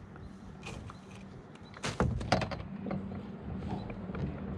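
Handling noise of fishing gear on a small boat while a fish is played: scattered clicks and rattles from the rod, reel and landing net, with two sharp knocks about two seconds in, over a faint steady low hum.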